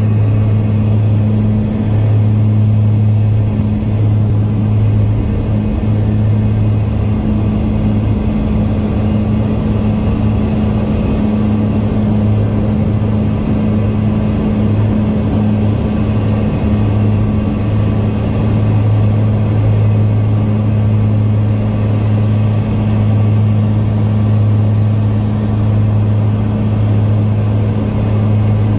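Jet airliner's engines at takeoff power, heard from inside the passenger cabin during the takeoff run and climb-out. A loud, steady drone with a strong low hum over rumbling noise.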